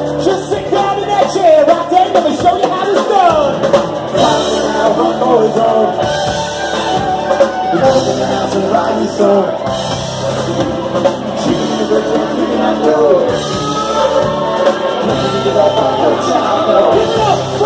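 Live rock band playing a fast instrumental break: electric lead guitar running quick sliding lines over bass guitar and a drum kit.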